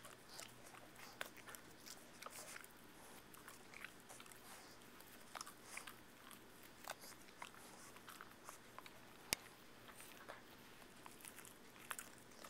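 Boston terrier chewing and gnawing a stuffed plush toy, making faint, irregular soft clicks and crunches of teeth in the fabric and stuffing, with one sharper click about nine seconds in.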